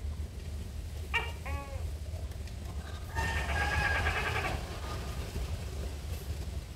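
An animal calling: a pair of short, falling cries about a second in, then a single longer call of over a second near the middle.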